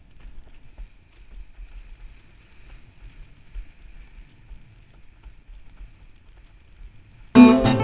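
Faint, uneven low rumble of wind and water rushing past a windsurf board, picked up by a camera mounted on the board. Near the end, strummed acoustic guitar music cuts in loudly.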